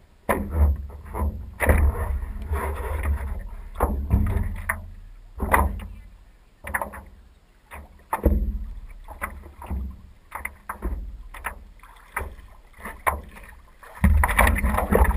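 Paddle strokes in calm lake water, an irregular run of splashes and sloshing about once a second, over a low rumble at the microphone.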